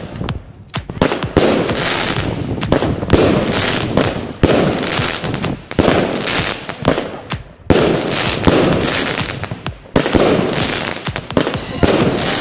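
Aerial fireworks going off in quick succession: sharp bangs of bursting shells several times a second over a continuous noisy hiss.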